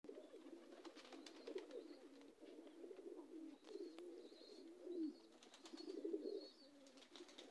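Domestic pigeons cooing faintly, a run of low wavering coos, with a few light clicks.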